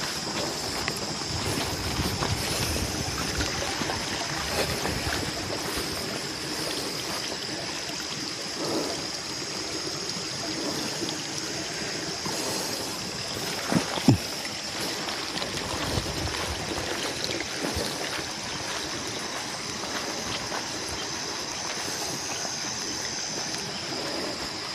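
Running water trickling and gurgling steadily, under a constant high-pitched drone; two short sharp knocks stand out about halfway through.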